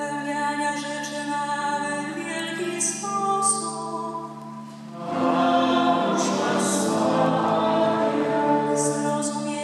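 Sung Polish litany: slow, sustained vocal phrases, with a short break between phrases about five seconds in.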